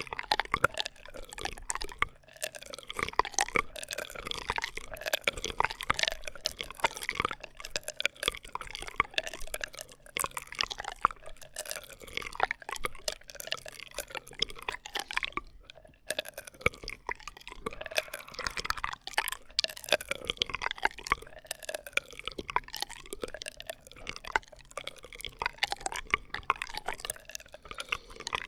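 ASMR straw sounds: a drinking straw worked close to the microphone, giving a dense, continuous run of quick chirping glides and small wet clicks.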